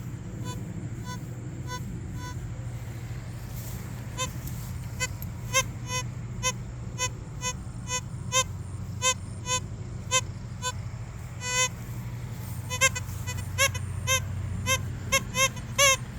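Geese honking in a series of short calls that grow louder and more frequent, over a steady low rumble of traffic.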